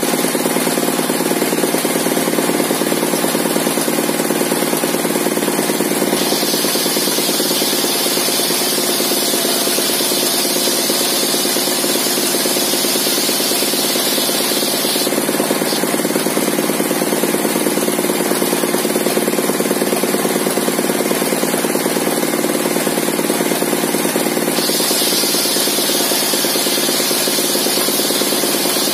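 Belt-driven circular saw bench, its blade modified for ripping fibrous timber, powered by a stationary engine running steadily. A higher cutting hiss from the blade ripping a board lengthwise rises about six seconds in, stops around fifteen seconds, and starts again near the end.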